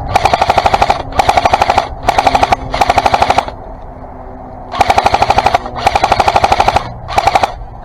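Airsoft electric machine gun, a Matrix M4 LMG, firing short full-auto bursts, its gearbox clacking rapidly over a motor whine. About seven bursts come in quick succession, with a pause of about a second in the middle.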